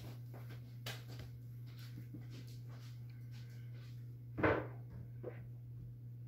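Poodle puppy moving about on carpet with a plush toy: faint scuffs and knocks, one short louder sound about four and a half seconds in and a smaller one just after, over a steady low hum.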